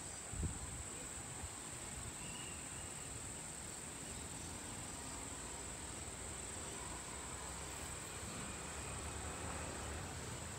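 A steady, high-pitched insect chorus of crickets, unbroken throughout, over a faint low outdoor rumble.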